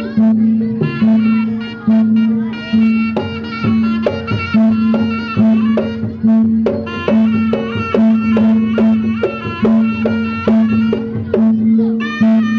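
Kuda kepang accompaniment music played live: a reedy wind melody over a steady low tone, with drum and percussion strikes keeping a regular beat.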